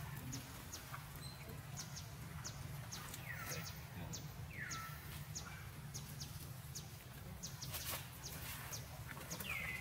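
Birds chirping: quick, short, high chips all through, with a few brief falling calls in the middle and again near the end, over a steady low hum.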